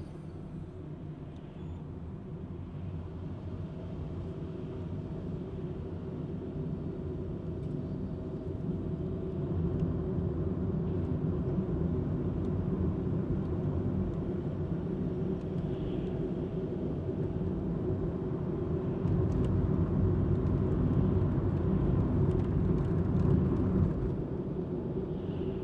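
Car cabin noise while driving: a steady low rumble of engine and tyres heard from inside the car, growing louder about ten seconds in and again near twenty seconds in.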